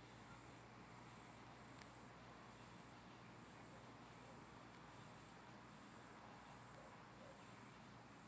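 Faint cricket chirping: a high, even pulse repeating about every half second.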